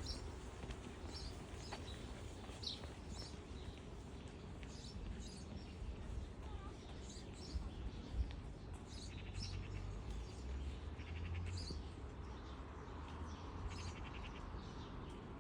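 Birds chirping: many short, high chirps scattered throughout, with a few quick rattling trills, over a steady low rumble.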